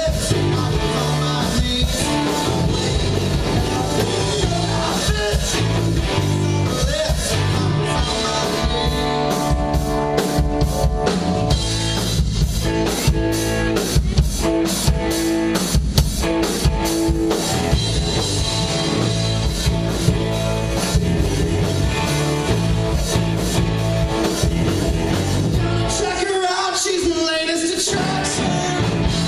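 Live rock band playing: drum kit, electric guitar and bass with singing at times, a steady driving beat. The bass and drums drop out briefly near the end.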